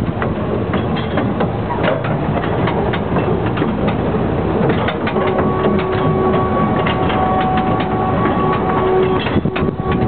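Narrow-gauge light railway train running on the track, with continual clicking and rattling. A steady tone joins in about five seconds in and holds for about four seconds.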